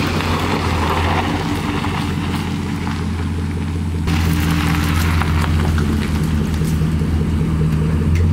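A 2004 Chevrolet Silverado pickup idling, its exhaust giving a steady low drone that gets a little louder about four seconds in.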